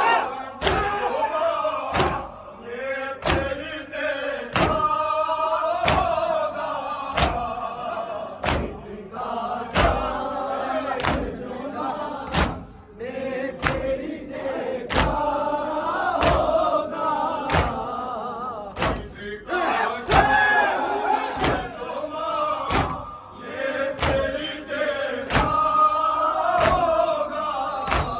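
Shia mourners performing matam: a crowd of men chanting a nauha together while beating their chests with open hands in a steady rhythm, the slaps coming about three every two seconds.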